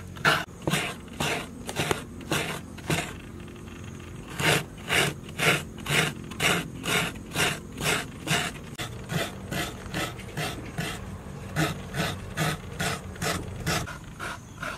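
Taro root being grated by hand on a metal grater over a steel pot: rhythmic rasping strokes, about two a second, with a pause of about a second a few seconds in.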